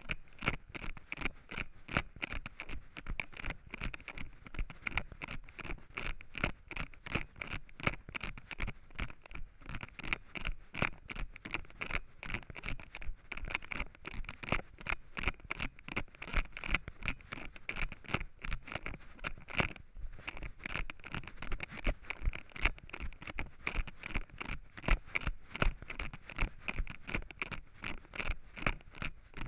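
Running footsteps crunching through dry fallen leaves on a forest trail, a steady beat of about three strides a second.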